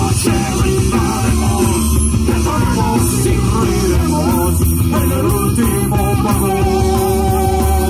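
Live rock band playing through a PA: electric guitars, bass guitar and drums, with a singer.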